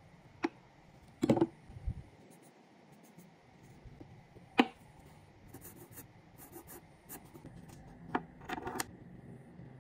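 Small pen-making parts (a dyed burl pen blank, a brass cartridge case and deer antler pieces) being handled and set down on a bench: a few separate sharp taps and knocks, the loudest about a second in and again about four and a half seconds in, with light ticks of handling between.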